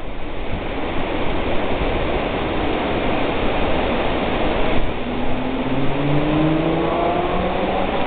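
Steady rushing noise, with a motor vehicle accelerating from about five seconds in, its engine note climbing slowly in pitch.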